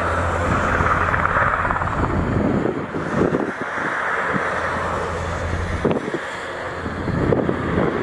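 Twin-turbine NH90 helicopter running on the ground with its rotor turning: a steady turbine and rotor noise with a low hum. Gusty wind buffets the microphone throughout, in uneven surges.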